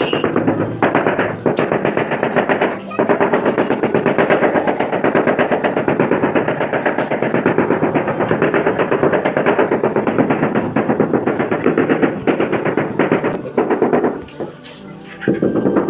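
Rapid, even mechanical tapping or rattling, about ten strokes a second, from tile-laying work. It stops about fourteen seconds in and starts again briefly near the end.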